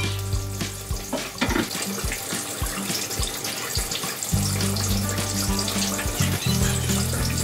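A metal spoon stirring a thin tomato sauce in a glass measuring jug: repeated light clinks against the glass and liquid swishing. Background music with steady low notes plays alongside.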